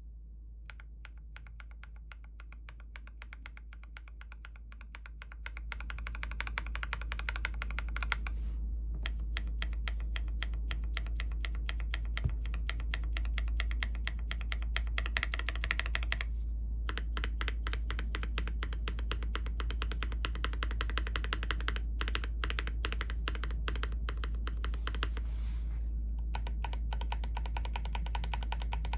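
Mechanical keyboard with Fantasy Virus switches being typed on: a fast, dense stream of keystrokes with short breaks about 8, 16 and 26 seconds in, over a steady low hum.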